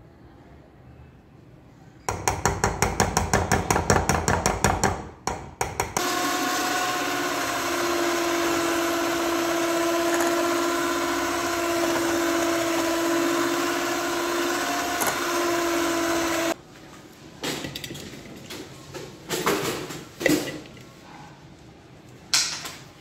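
Electric hand mixer running steadily for about ten seconds, beating sponge cake batter in a bowl. Before it starts there are a few seconds of fast rhythmic knocking, about seven a second, and after it stops a few scattered knocks and scrapes.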